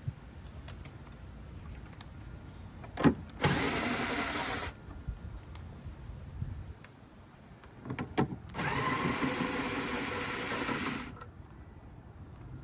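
Power drill-driver run twice, first for about a second and then for about two and a half seconds, each run preceded by a short blip of the trigger. It is backing out the mounting screws of the old taillight.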